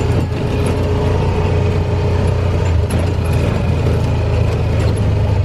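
Side-by-side utility vehicle running steadily while driving: a low engine drone with a steady whine above it.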